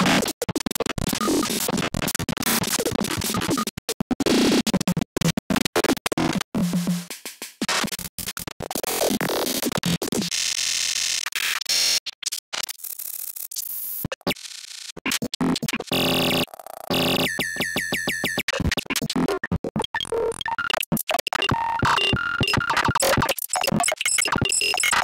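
Experimental noise music: harsh, chopped electronic noise with many abrupt cuts and brief dropouts, and a fast, even stutter a little past the middle.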